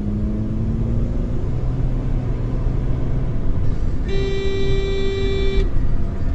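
Car driving in traffic with steady engine and road noise, and a single car horn blast about four seconds in, held for about a second and a half.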